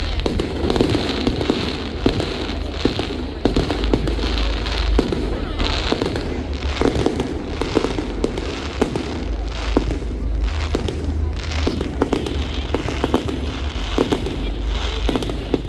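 Fireworks going off in a rapid, irregular string of sharp bangs and crackles over a steady low rumble.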